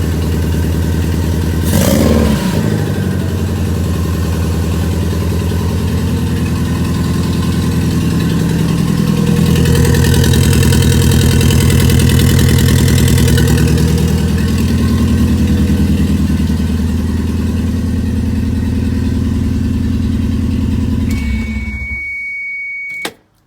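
Toyota 3S-GTE Gen 3 turbocharged four-cylinder running in a 1993 MR2 on its first start in a new shell, with its intercooler piping not yet connected. The revs rise for a few seconds around ten seconds in, settle back, and the engine shuts off near the end.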